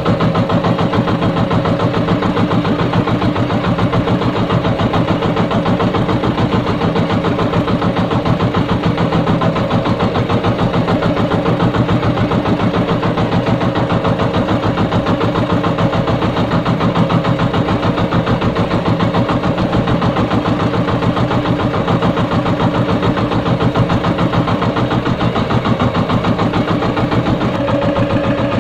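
Engine of a motorized outrigger fishing boat running steadily at constant speed, with a fast, even pulsing beat.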